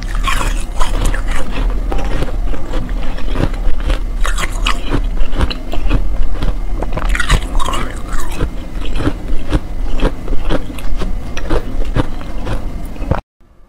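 Close-miked crunching and chewing of a mouthful of slush ice: a dense run of irregular crunches and wet chewing that cuts off suddenly near the end.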